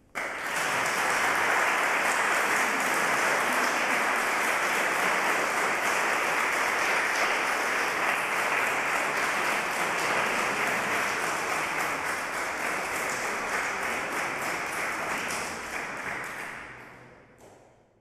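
Audience applauding: it starts suddenly, goes on as a steady dense clapping, then fades out near the end.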